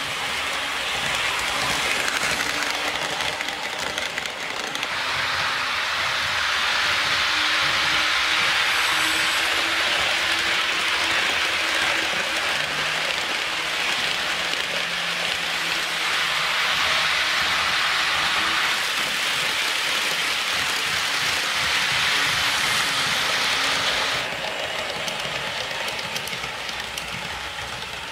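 HO scale model train rolling along the track: a steady hiss of wheels on the rails over a faint motor hum. It is louder through the middle and drops off about 24 seconds in.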